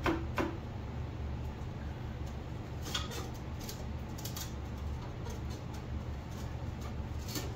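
A few scattered clicks and light knocks over a steady low hum: a glass pane being tipped up and lifted out of a steel window frame, with two clicks right at the start, one about three seconds in and one near the end.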